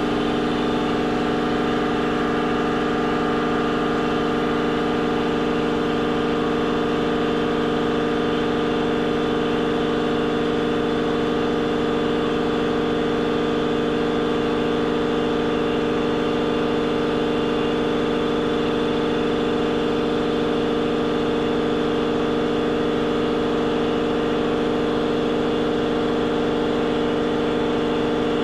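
Engine idling steadily at an even, unchanging pitch.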